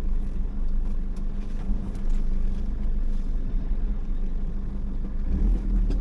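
Car running at low speed on a rough dirt road, heard from inside the cabin: a steady low engine and tyre rumble with a few faint light knocks.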